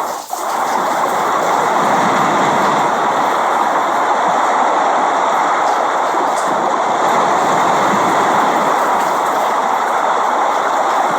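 Steady rain, an even continuous hiss, with one brief dip in loudness just after the start.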